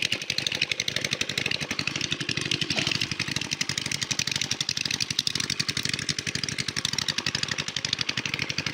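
Small engine running steadily at an even idle-like speed, its firing heard as a fast, regular pulse.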